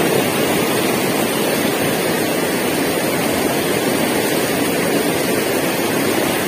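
Fast river rapids rushing over and around boulders: a steady, loud wash of water noise with no letup.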